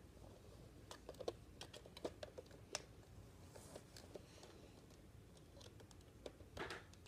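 Faint, scattered plastic clicks and rattles of a Nerf blaster being handled as its stuck magazine and slide are worked at, with a slightly louder clatter about six and a half seconds in.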